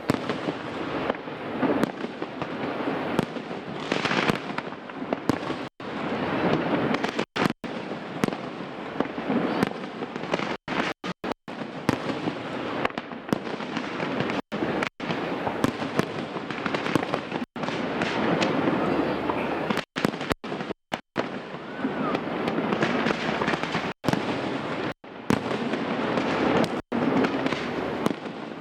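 Fireworks display: dense, continuous crackling and popping of shells bursting overhead. The sound cuts out completely for split seconds several times, about a dozen times in all.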